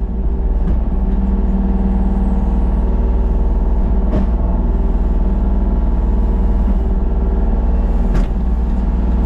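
An engine running steadily at an even speed, with three sharp knocks about four seconds apart.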